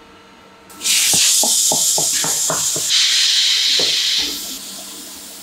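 Compressed air hissing loudly from a pneumatic tyre-changing machine for about three and a half seconds, with a run of light clicks about three a second, then fading off.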